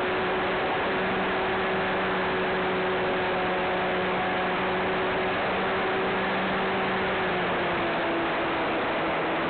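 Cessna 182's piston engine and propeller droning steadily in cruise under a hiss of airflow, heard from inside the cabin. The drone's pitch dips slightly about eight seconds in.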